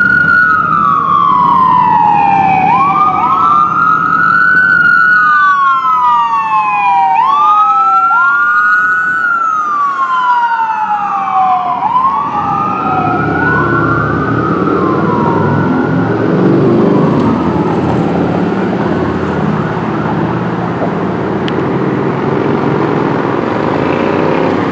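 Emergency-vehicle siren wailing, sweeping quickly up and then slowly down about once every three and a half seconds. It fades out about fifteen seconds in, leaving loud engine and traffic noise.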